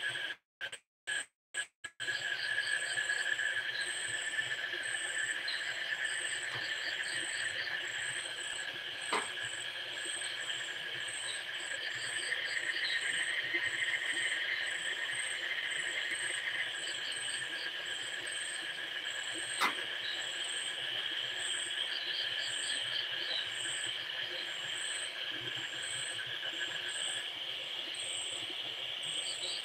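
Steady chorus of crickets trilling, with rows of faster, higher chirps over it. The sound drops out briefly several times near the start, and two faint clicks come about a third and two thirds of the way through.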